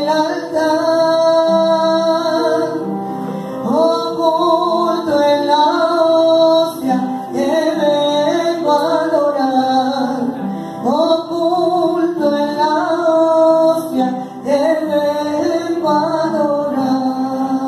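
A Catholic worship song: a singer's voice carrying a slow melody over electronic keyboard accompaniment.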